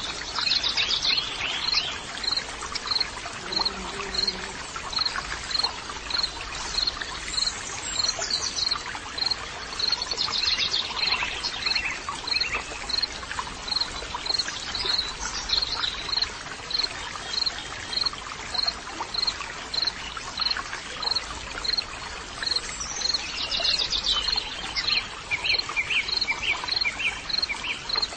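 Tropical forest ambience: a steady rushing hiss with a high chirp repeating about twice a second, and bird calls now and then. A brief low note sounds about four seconds in.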